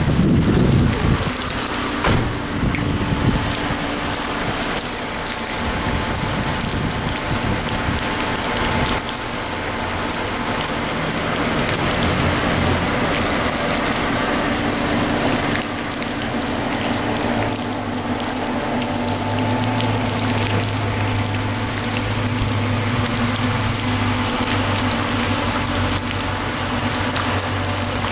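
Flooded river rushing past: a steady, dense roar of fast-moving water, with a low steady hum underneath.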